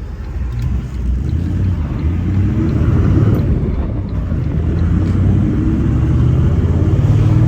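Toyota Land Cruiser Troopy engine running through a 3.5-inch TORQIT performance exhaust, with a low, throaty note. The note grows louder and rises a little in pitch in the second half as the engine is given more throttle.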